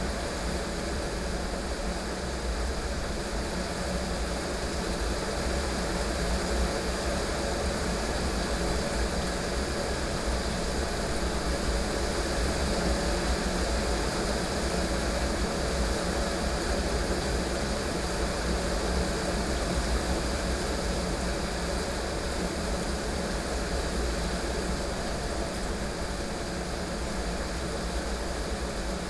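Heavy rain falling steadily, with a constant deep rumble underneath and no sharp thunder crack.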